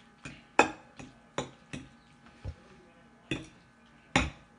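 Metal fork clinking and scraping against a plate while spaghetti is twirled and scooped: about eight short, sharp clicks at uneven intervals.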